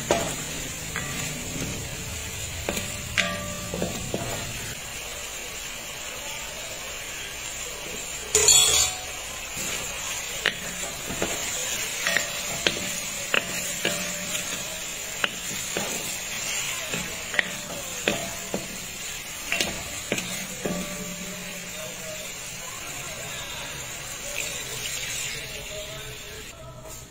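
Chicken drumsticks sizzling in oil in a stainless steel pan, with a utensil clicking and scraping against the pan as they are stirred. There is one louder scrape about eight and a half seconds in.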